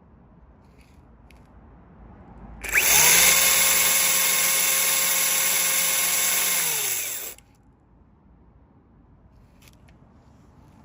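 Makita MUC353DZ cordless chainsaw triggered on a no-load test run: it comes up to speed almost at once, runs at a steady high pitch for about four seconds, then winds down with falling pitch and stops when the trigger is released.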